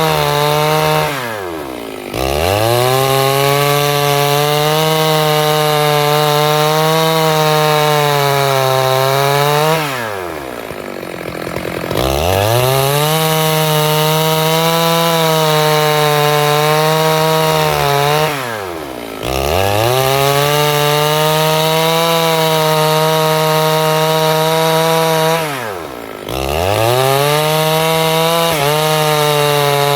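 Stihl 651 two-stroke chainsaw running at high revs while cutting wood, with the engine note dropping away and climbing back up four times as the throttle eases off and opens again.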